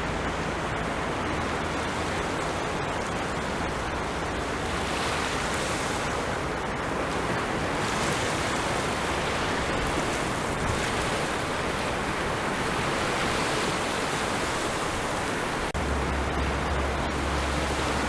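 Ocean surf washing steadily on a shore, a continuous rush of breaking waves with a low rumble underneath that swells again near the end.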